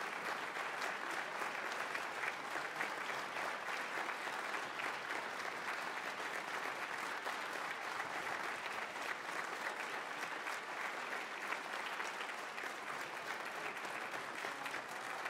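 Concert-hall audience applauding steadily, many hands clapping at once.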